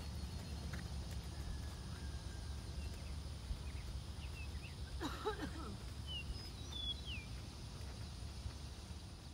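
Rural outdoor ambience: a steady low rumble with scattered short bird chirps, and one brief louder call about five seconds in.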